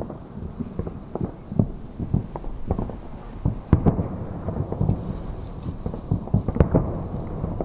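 Many distant aerial fireworks shells bursting: a dense, irregular string of dull booms, several a second, overlapping one another.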